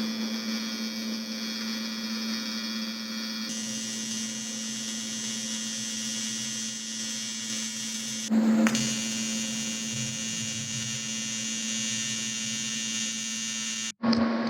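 AC TIG welding arc on thin aluminum sheet, a steady electric buzz with a short louder burst about eight seconds in, stopping abruptly just before the end.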